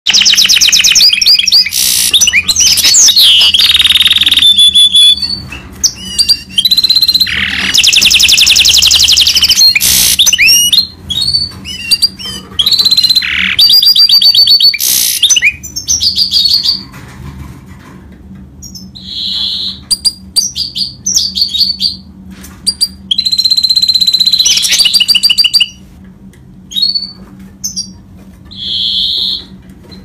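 Mule goldfinch (goldfinch × canary hybrid) singing loudly: rapid trills, rattles and held whistled notes in a dense run for about the first half, then shorter phrases broken by pauses.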